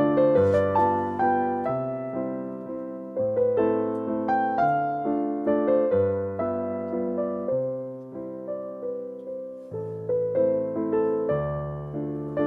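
Background piano music: a gentle melody of evenly paced notes, each dying away after it is struck, over slowly changing bass notes.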